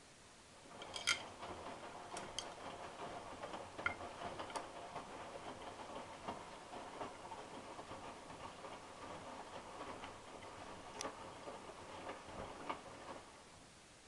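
Hotpoint NSWM 843C washing machine drum turning during the final rinse: wet laundry and water tumbling with a rapid run of clicks and rattles and a few sharper knocks. It starts about a second in and stops shortly before the end as the drum pauses.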